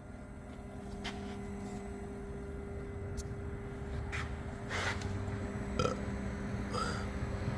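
Autool CT400 injector tester and cleaner humming steadily in its no-disassembly cleaning mode, with a handful of short clicks and knocks over the hum.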